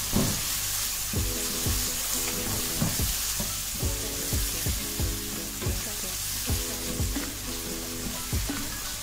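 Chopped tomatoes and onion frying in hot mustard oil in a non-stick wok, sizzling steadily while a wooden spoon stirs them, with a soft knock against the pan at each stroke.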